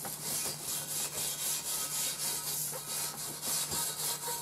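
A grill brush scrubbing the cast iron grate of a Lodge portable grill, cleaning it down after cooking, in quick, even back-and-forth strokes.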